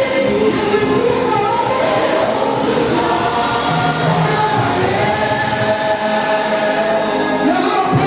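Choir singing a gospel song with musical accompaniment.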